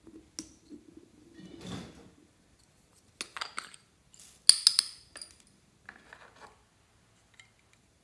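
Small plastic containers and lids clicking and tapping as they are handled, a scatter of short sharp clicks with the loudest about four and a half seconds in. A softer rubbing sound comes just before the two-second mark.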